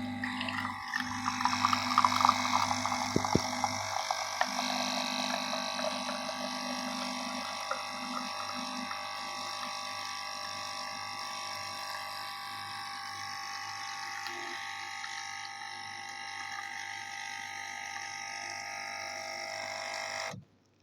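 Espresso machine brewing: its pump hums steadily, with a louder crackly stretch in the first few seconds, and then stops suddenly near the end.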